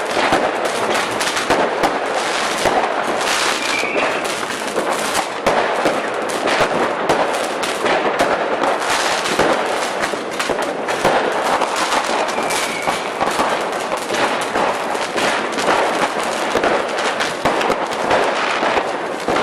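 Firecrackers going off in a dense, unbroken run of rapid cracks and pops, many per second, at a steady loud level with no pause.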